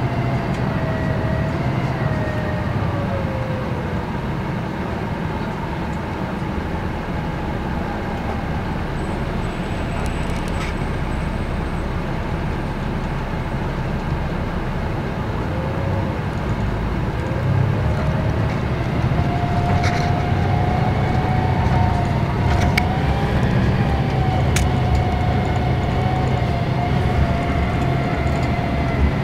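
Ride inside a 1992 Neoplan AN340/3 coach: its Detroit Diesel Series 60 inline-six diesel and drivetrain rumble under a whining tone. The whine falls in pitch over the first few seconds as the bus slows, then rises and grows louder about 17 seconds in as it accelerates again. A few sharp rattles from the body come through.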